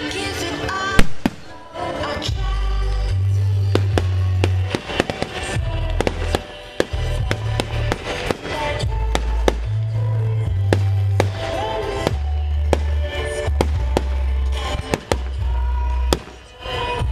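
Aerial firework shells bursting in a rapid run of sharp bangs and crackles, the loudest about a second in. Music with a heavy bass line plays under the bangs.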